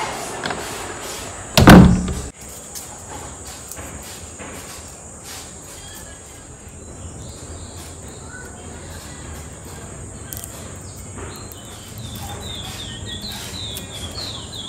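A door slams shut about two seconds in. Then comes a steady outdoor background with a thin, high insect drone, and from about eleven seconds in a bird chirping repeatedly.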